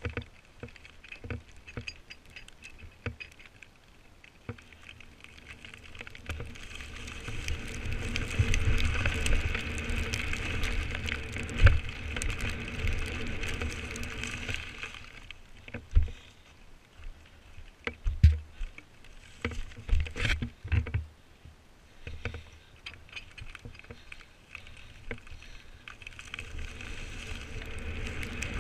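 Mountain bike riding down a leaf-covered dirt trail: tyre rumble and rattle of the bike, louder from about 6 s to 15 s. Several sharp thuds come in the middle and second half as the bike lands off jumps.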